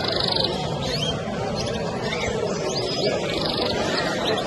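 Many caged show birds chirping and calling, with quick sweeping chirps and a buzzy trill twice, near the start and about three seconds later, over a steady low background murmur.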